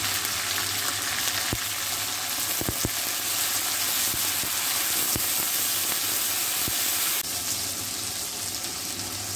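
Chopped tomato and onions sizzling in hot oil in a nonstick frying pan, stirred with a spatula that knocks against the pan a few times. The sizzle drops a little about seven seconds in.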